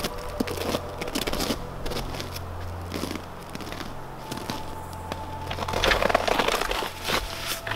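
Footsteps crunching in snow, irregular, thickest and loudest about six seconds in, over a low steady hum.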